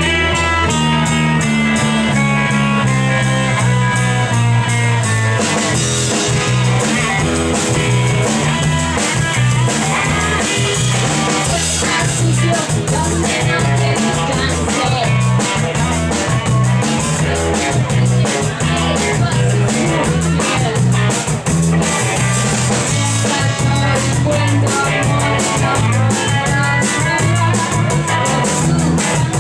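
A rock band playing live, with electric guitar, bass and drum kit keeping a steady beat. The music comes in loudly at the start.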